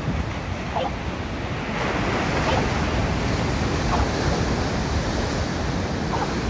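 Ocean surf breaking and washing up the beach in a steady rush, a little louder from about two seconds in, with wind rumbling on the microphone.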